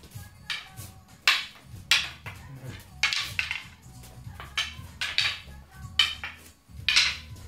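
Kali practice sticks clacking against each other in a partner drill: sharp wooden clacks, more than one a second, in an uneven rhythm.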